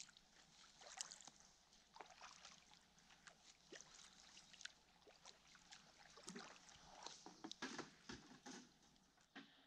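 Faint drips and light splashes of kayak paddles dipping into calm water, a scatter of small ticks and trickles.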